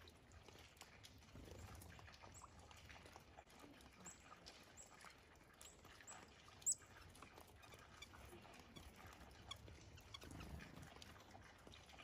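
Faint, thin, high chirps of small songbirds, a handful of short notes scattered through, with one sharp, much louder chip a little past halfway.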